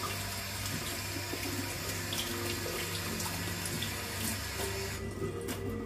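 Kitchen tap running into the sink while hands are rinsed, turned off about five seconds in, followed by a few light clicks.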